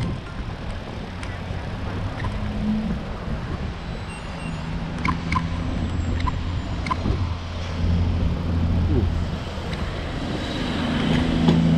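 Bicycle rolling over a wet wooden plank bridge deck, with irregular clicks and knocks from the boards under the tyres over a steady rush of noise. A steady low hum grows louder near the end.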